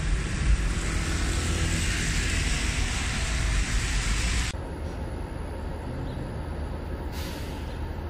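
City street traffic on a wet road: a steady hiss of tyres and engine rumble from passing vehicles. About four and a half seconds in it cuts off to a quieter low engine rumble, with a short hiss near the end.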